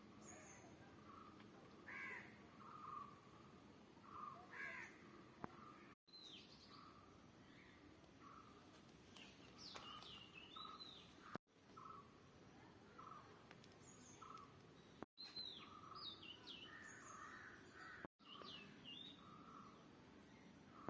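Faint outdoor birdsong: several birds give short chirps and downward-sliding whistled notes, with a run of repeated lower calls, over a light background hiss. The sound cuts out abruptly for an instant four times, at edit joins.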